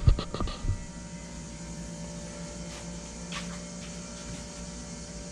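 A few sharp knocks in the first second, then a steady low hum from a small motor, with a few faint clicks, while a kart tire is being finish-sanded with 220-grit paper.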